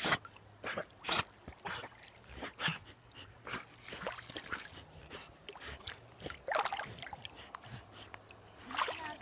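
Dogs swimming right up close, their breathing and the splash of water in a string of short sharp sounds, about two a second during the first few seconds and sparser after.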